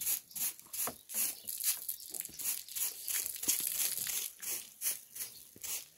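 Thin plastic bag crinkling and rustling as it is handled, in a quick, irregular run of crackles.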